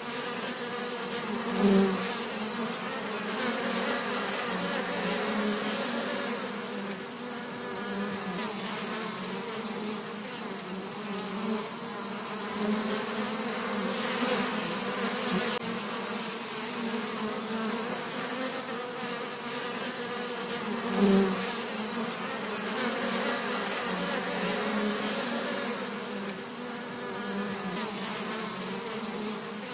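Bees buzzing in a continuous, wavering drone, with a brief louder swell about two seconds in and again around twenty-one seconds in.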